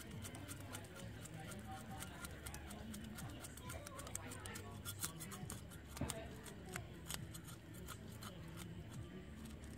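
A knife scraping over a fish on a cutting board, scaling it: a fast, irregular run of short scratchy strokes.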